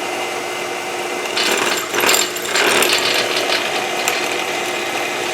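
Drill spindle running steadily while a drill bit cuts a set-screw hole into a metal block. The cutting grows louder and scratchier from about a second and a half in until about three and a half seconds.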